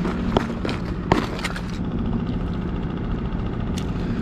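Outboard motor idling steadily, with several sharp clicks and knocks in the first two seconds and again near the end.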